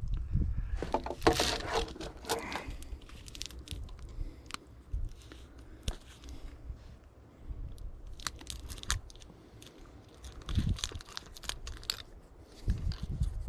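Copper wires being pulled by hand out of cut scrap parts: irregular scraping, crinkling and light clicks as the wires slide out and pieces are handled, with a couple of dull knocks in the last few seconds.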